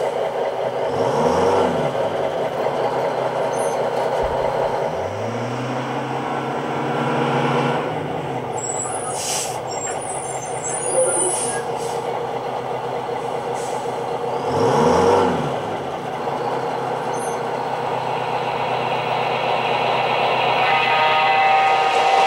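O-gauge model train running on three-rail track: a steady rumble and hum, with a mechanical sound that rises and falls in pitch three times. A steady horn-like tone comes in near the end.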